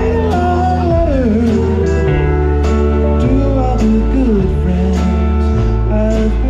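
Band music: guitar over a steady bass and a regular drum beat, with a lead melody that slides up and down in pitch.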